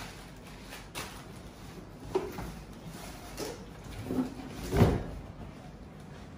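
Large cardboard shipping box being handled: flaps scraping and folding, with a few separate scuffs and thumps, the heaviest thump about five seconds in.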